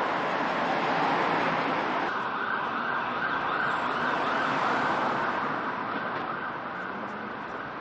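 Street traffic noise: cars passing on a town road, a steady wash of road noise that changes abruptly about two seconds in and eases off slightly near the end.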